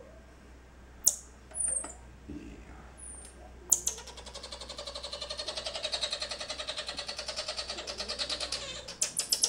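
Baby common marmoset calling: a few short, very high falling chirps, then from about four seconds in a fast, even chatter of about ten calls a second that goes on for about five seconds.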